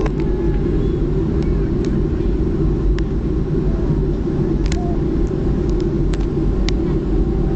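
Cabin noise inside a Boeing 737-300 rolling on the ground after landing: a steady, loud, deep rumble from the CFM56 engines and the wheels on the pavement. A few faint clicks and rattles sound over it.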